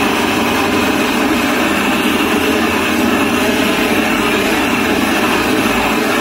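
Handheld gas blowtorch flame running steadily at a constant loud level while it melts grated cheese on the dish.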